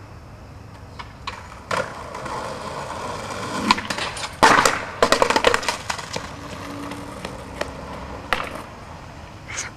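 Skateboard on concrete: wheels rolling, then the board sliding along a concrete ledge. A loud slam comes about four and a half seconds in, followed by a quick run of clattering knocks as the board comes down off the ledge after a failed trick.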